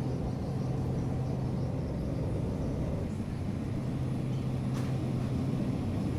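Steady low hum and rumble of a store's background noise, typical of refrigeration or ventilation equipment, with a faint click about five seconds in.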